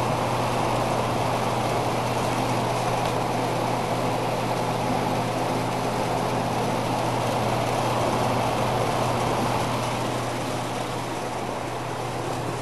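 Galaxy box fan running on high: a steady rush of moving air over a constant low motor hum, easing slightly near the end.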